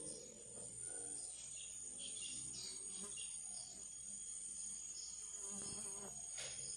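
Steady high-pitched insect chirring, with a few faint short chirps over it.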